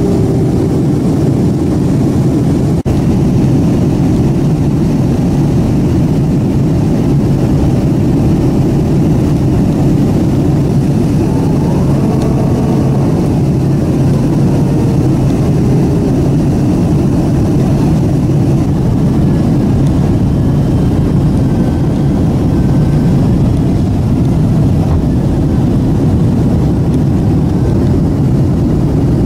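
Steady loud roar inside an airliner's cabin: the jet engines and the airflow over the wing during the descent, with the flaps extended.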